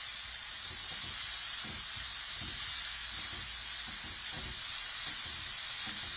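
Oil and finely diced onion sizzling steadily in a frying pan on high heat.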